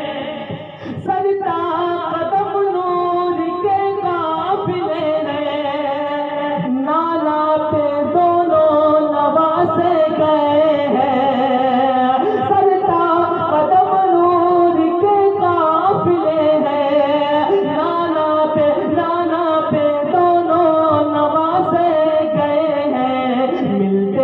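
A man singing a naat, an Urdu devotional poem, unaccompanied in a slow melismatic style with long wavering held notes. There is a brief break for breath about a second in.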